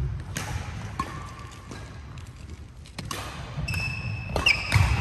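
Badminton players' footsteps thudding and court shoes squeaking on the hall floor, with a few sharp clicks of racket strikes on the shuttlecock. The squeaks gather toward the end.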